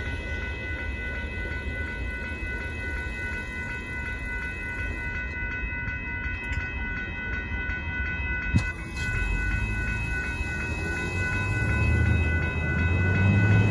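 Freight train of hopper cars rumbling past over a grade crossing, with the crossing's warning bell ringing steadily over it. There is one sharp knock about eight and a half seconds in, and near the end a car's engine grows louder as it drives across.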